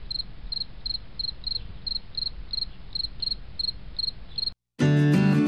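Cricket chirping: short, high chirps about three a second over a low background rumble. The chirping cuts off about four and a half seconds in, and after a brief gap louder acoustic guitar music begins.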